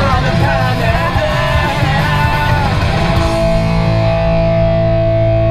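Rock music with guitar and singing; about three seconds in it settles into a long held chord.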